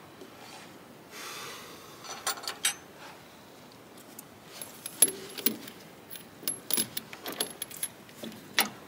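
Metal hand tools clinking and knocking as spanners are picked up and handled, with a run of sharp irregular clicks and light metallic rings in the second half.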